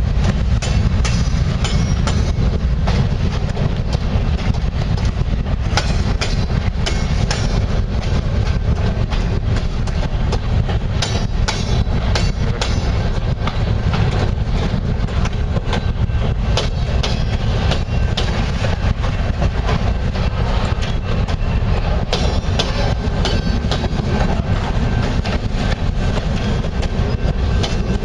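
Freight train rolling past, its wheels clicking and clattering over the rail joints above a steady low rumble.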